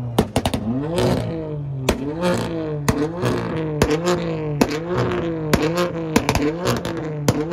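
A performance car engine is revved hard over and over, its pitch climbing and falling about once a second, with sharp cracks between the revs.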